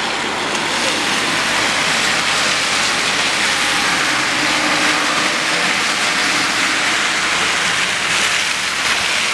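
Steady hiss of traffic and tyres on a wet, slushy street.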